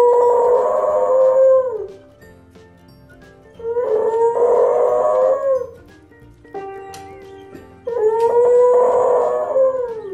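A beagle howling at an upright piano: three long howls, each held on one pitch and dropping away at the end. Between the second and third howl a piano chord rings out, struck by the dog's paws on the keys.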